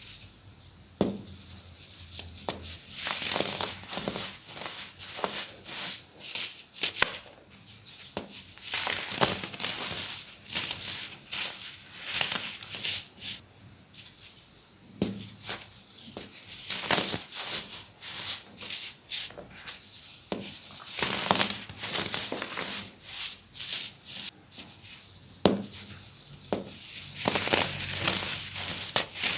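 Compressed baking soda being crushed: irregular spells of gritty crunching and crackling, with quieter crumbling between.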